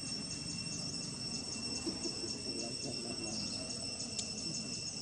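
Insects trilling steadily at a high pitch, with a repeating chirp about three times a second, over a low steady background noise. There is one brief click near the end.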